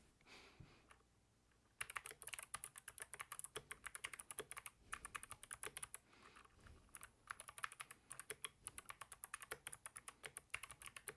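Typing on an ABKO Hacker K8200 V1 keyboard with optical switches: a rapid run of key clicks that starts about two seconds in, with a short lull near the middle.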